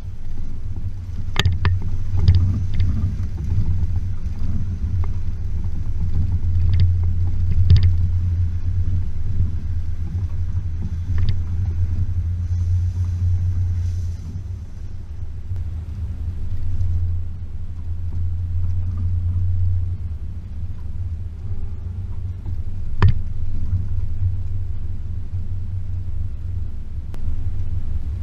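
Range Rover P38's 4.0-litre V8 engine running with a steady low rumble as the vehicle drives slowly over a rough track, swelling and easing with the throttle. Sharp knocks and rattles from the body and suspension cut in now and then, the loudest about a second in, at about eight seconds and near the end.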